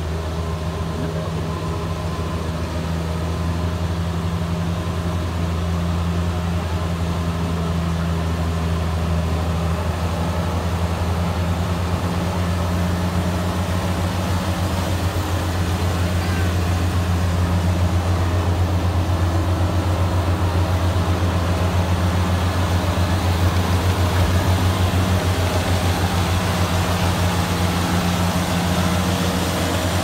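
Rice combine harvester's engine running steadily, a low even drone that grows a little louder about halfway through.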